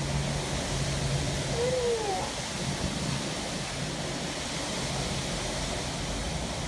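Gale-force storm wind with heavy rain, a dense steady rushing. A short rising-and-falling tone cuts through it about two seconds in.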